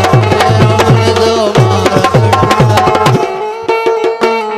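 Instrumental break in a folk song: a harmonium holding steady notes over a hand drum playing fast, deep bass strokes that bend down in pitch, about four a second. The deep strokes drop out about three seconds in, leaving the harmonium and lighter drum taps.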